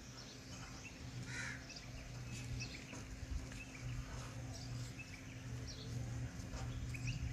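Birds calling, with short crow-like caws scattered through, over a steady low hum.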